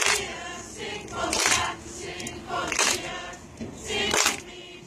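Many voices chanting or singing together in a steady rhythm, with a loud accented shout about every second and a half.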